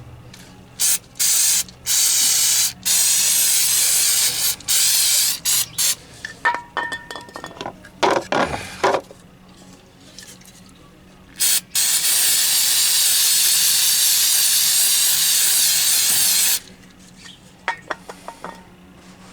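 Aerosol mass air flow sensor cleaner hissing out of the can in a run of short sprays, then one long spray of about four seconds, with a few clicks and knocks in between.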